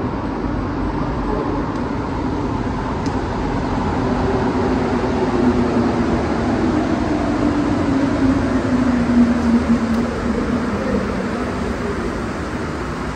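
Montreal Metro rubber-tyred train approaching and pulling into the station: a steady rumble that grows louder through the middle, with a whine that falls in pitch as the train slows, then eases as it enters the platform.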